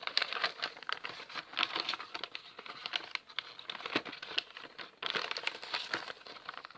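Thin plastic bag of LEGO pieces crinkling as it is handled and opened: a dense, irregular run of small crackles and clicks, with a brief pause about five seconds in.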